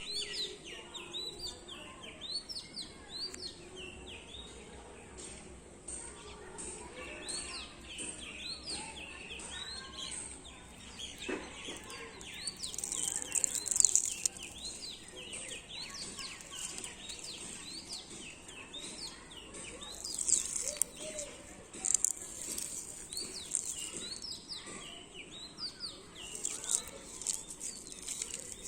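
Many small birds chirping and calling over one another in a dense stream of short, quick chirps, with a few louder, shriller high-pitched bursts scattered through the middle and later part.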